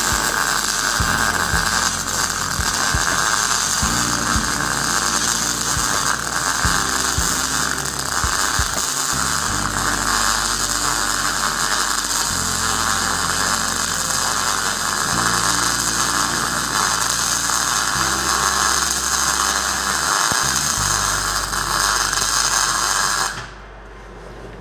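MIG welding arc crackling steadily as a bead is run, stopping abruptly near the end when the arc is cut.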